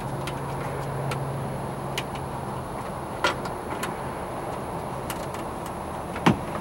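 Light clicks and knocks of a fishfinder display unit and its mount being handled on a fiberglass boat dashboard, with one louder knock near the end. A steady low hum runs underneath and fades about two-thirds of the way through.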